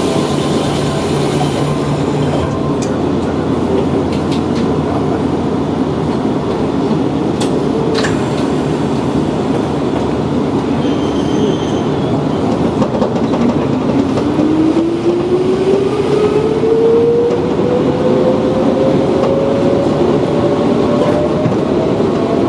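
Steady rumble inside an electric train's cab. From about halfway through, a motor whine rises steadily in pitch as the train accelerates.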